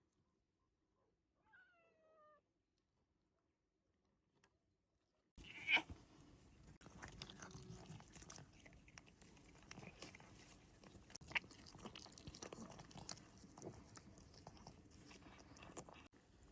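A faint short call falling in pitch, then, from about five seconds in, close wet chewing and crunching with many small clicks, an animal or person eating.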